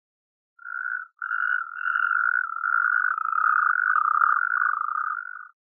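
Toad calling: a short trill, then after a brief gap a long unbroken trill of about four seconds at a steady pitch.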